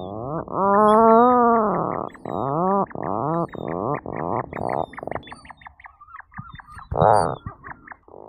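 Atlantic puffin calling: one long low call that rises and then falls in pitch, followed by a run of shorter notes that come faster and fade away. One more short, loud note comes near the end.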